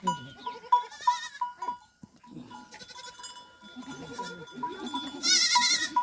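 Goats bleating: a faint call about a second in and a loud, quavering bleat near the end, over a run of short, evenly repeated high peeps.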